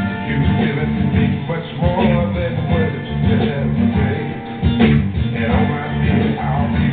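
Recorded music playing: a song with guitar.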